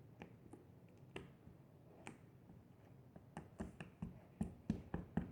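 Faint, sharp clicks and taps from small objects being handled, a few at first and coming quicker in the second half.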